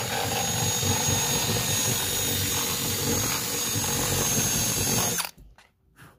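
Cordless drill boring through a wooden trunk floor panel: the motor runs under load with a steady high whine, then cuts off suddenly about five seconds in.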